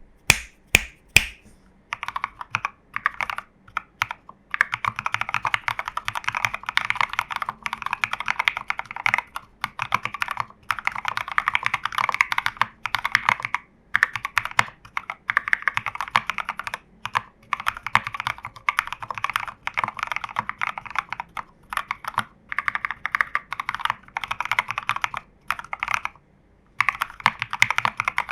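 Typing on a custom TU40 keyboard with a foamed plastic case, lubed Reversed BCP mechanical switches (Cherry HB stems and springs in NK Cream housings) and SA-profile keycaps. A few separate sharp key strikes come first, then fast runs of keystrokes broken by short pauses, the longest near the end.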